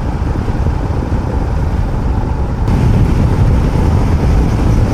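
Motorcycle on the move: engine and wind rushing over the microphone, getting louder a little over two and a half seconds in as it picks up speed.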